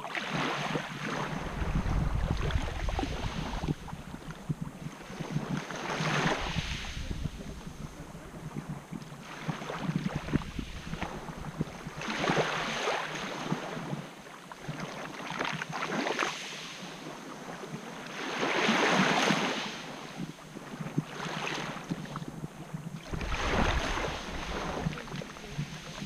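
Small sea waves lapping and washing up a beach of coarse white quartz grains, a hissing wash that swells and fades every few seconds. Wind rumbles on the microphone at the start and again near the end.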